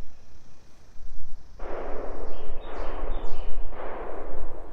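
Distant gunfire: a few shots, the first about a second and a half in, each followed by a long echoing tail.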